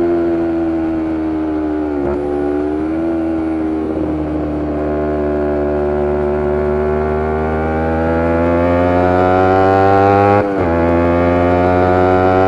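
Kawasaki Ninja 250R's parallel-twin engine with a full Graves Diamond race exhaust, heard under way. The engine note holds and slowly eases off, with a short break about two seconds in. It then climbs steadily in pitch, is cut by a quick upshift about ten seconds in, and rises again.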